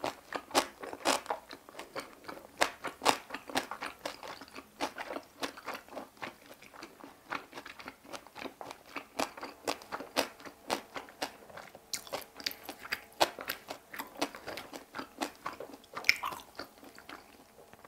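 Close-miked chewing of kimchi and boiled pork: wet crunching of salted napa cabbage in a steady run, about two crunches a second.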